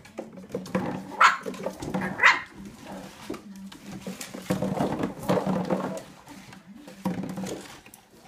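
Puppies barking and yipping in play, with two sharp yips about a second and two seconds in, while they push and mouth an empty plastic juice bottle across a wooden floor, the bottle knocking and scraping.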